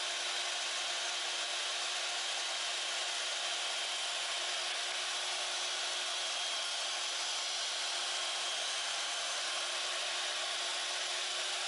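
Portable band saw running steadily as it cuts the legs off a hard plastic console bracket: an even whirring hiss with a faint steady hum and hardly any change in level.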